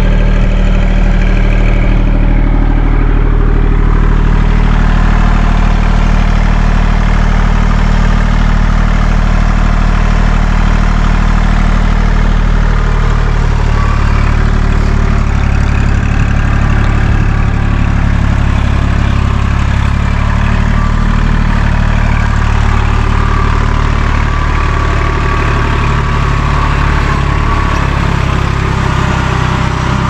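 Compact tractor engine running steadily at a constant speed.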